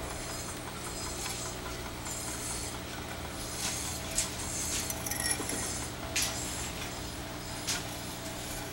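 Several short, sharp metallic clinks of steel on steel, heard over a steady low machine hum on a construction site where reinforcing-bar cages are being assembled.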